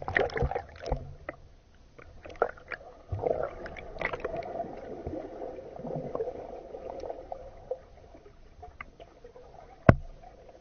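Muffled swirling water and bubbles heard through an underwater camera's microphone in a pool, with scattered clicks and a sharp knock near the end.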